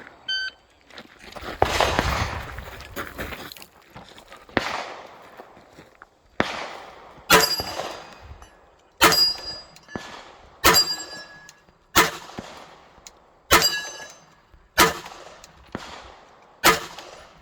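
A string of pistol shots, about ten, spaced one to two seconds apart, several followed by the ringing clang of steel targets being hit.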